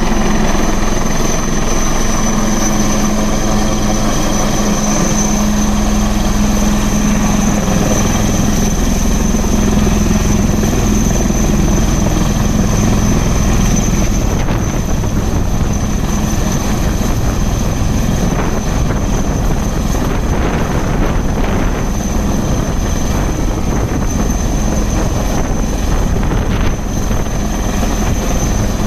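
HAL Dhruv helicopter flying low and hovering overhead: steady rotor and turbine noise with a constant high whine. A low hum in it fades about eight seconds in.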